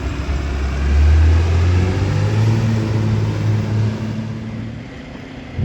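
Diesel engine of an old Volvo fire engine running, revving up about a second in and settling back after about four seconds.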